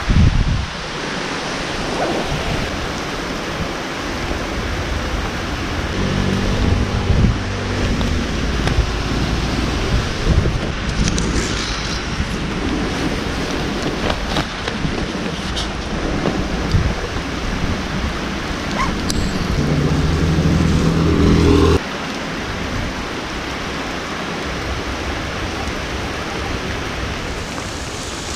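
Steady rain falling, an even hiss. Twice a low drone with a steady pitch rises out of it, about a quarter of the way in and again about three-quarters through, and the second one cuts off suddenly.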